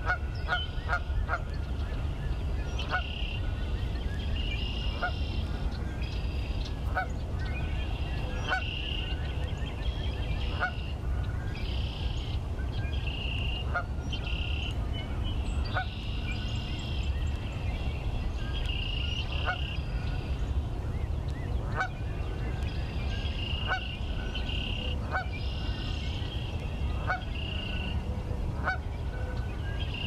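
Geese honking in short calls every second or two, a quick run of them at the start, with higher-pitched bird calls between and a steady low rumble underneath.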